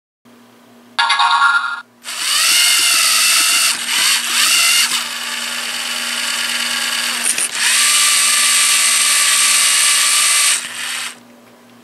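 LEGO Mindstorms EV3 robot's electric motors whining as it drives through its program. The pitch rises about two seconds in, drops around five seconds, climbs again near eight and stops about a second before the end. A short beep comes just before the motors start.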